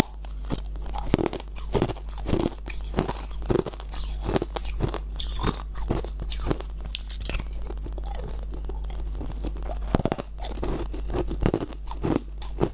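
Close-up biting and chewing of a slab of ice, a rapid, irregular run of sharp crunches and cracks of ice breaking between the teeth, with a steady low hum underneath.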